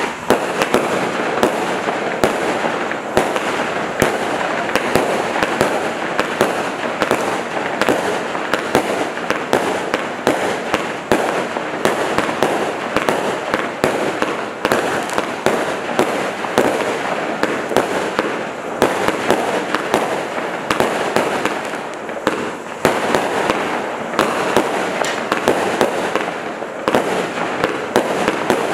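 Black Cat Solar Eclipse consumer firework cake firing without a break: shot after shot launching and bursting, with many sharp reports over a constant dense hiss.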